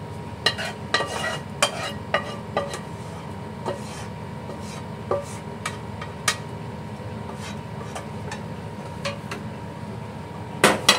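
A spoon scraping and clicking against a cooking pot in irregular strokes as the spiced oil seasoning is scraped into a rice cooker's inner pot. Near the end comes a louder clatter as the rice cooker lid is shut.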